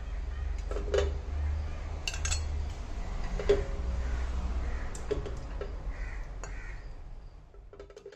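Metal tongs clinking and scraping against a stainless-steel mesh strainer and a ceramic plate as boiled mutton trotters are lifted out and set down: a few sharp clinks at irregular intervals, the loudest about three and a half seconds in, over a steady low hum.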